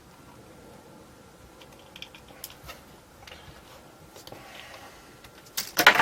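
A few faint clicks of small parts being handled on a workbench, then near the end a loud clatter of a pair of glasses falling onto a hard surface.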